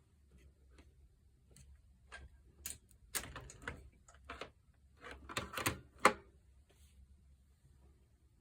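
A scattering of small, sharp clicks and knocks, busiest from about three to six seconds in, with the loudest single knock just after six seconds.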